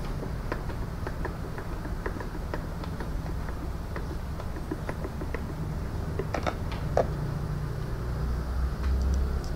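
Screwdriver turning screws into the plastic base housing of a Philips PerfectCare Aqua steam generator iron: a run of small irregular clicks and ticks, with a couple of sharper clicks past the middle. A steady low hum runs underneath.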